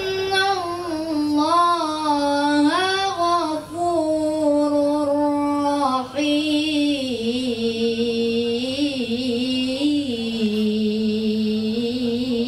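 Qur'an recitation in the melodic tilawah style: a single voice draws out long, ornamented held notes that waver up and down, sinking lower in pitch in the second half.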